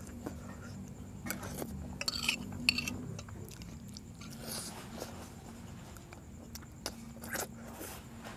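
A metal fork clinking and scraping against a plate a few times, with the sharpest click just under three seconds in, followed by softer sounds of biting into and chewing a piece of chicken. A low steady hum runs underneath.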